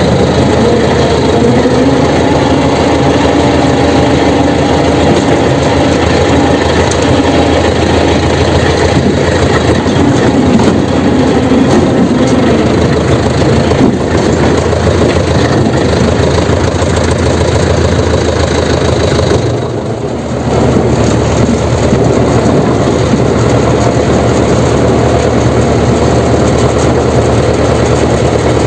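Jessop road roller's diesel engine running loudly and steadily while the roller is in gear and driving, with a short drop in level about twenty seconds in.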